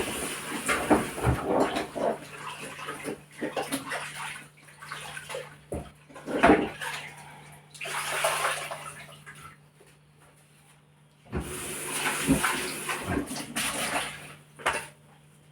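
Cooking pot being washed under a running tap: water splashing in stretches, with knocks of the pot against the sink. The water stops near the middle, runs again about a second later, and stops shortly before the end.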